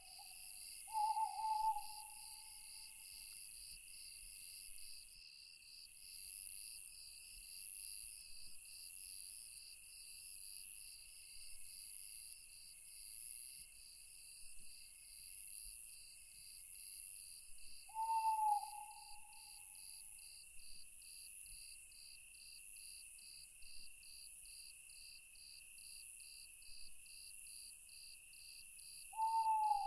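Night forest ambience: crickets and other insects chirping in a steady, rhythmically pulsing chorus, with an owl hooting three times, once about a second in, once around the middle and once near the end.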